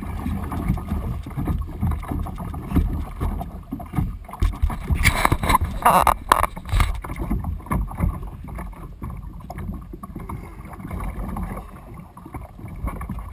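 Sea water splashing and slapping along the hull of a Malibu Extreme plastic kayak as a hooked tarpon tows it through light chop. A louder burst of splashing comes about five to seven seconds in.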